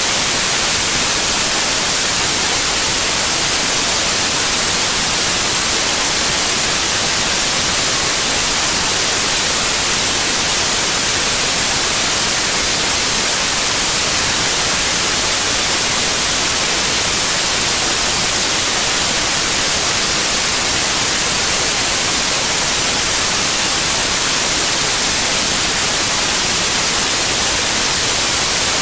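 Steady, even hiss of static that never changes, loudest in the treble, with no other sound in it.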